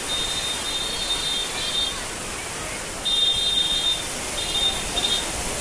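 A steady rush of turbulent floodwater churning past concrete bridge piers, mixed with wind. Over it a high, steady tone sounds three times, each for about half a second to two seconds.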